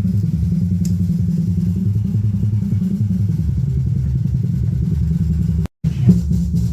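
Loud, distorted bass from a car sound system's subwoofers. It cuts out for a moment near the end.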